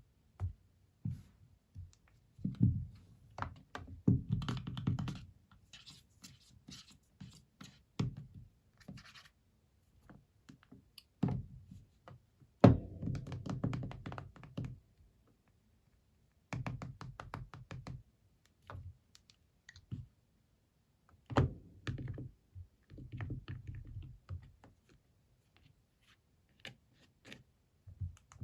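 Irregular knocks, taps and scraping of hard objects being handled, with short rustling stretches and gaps of silence between.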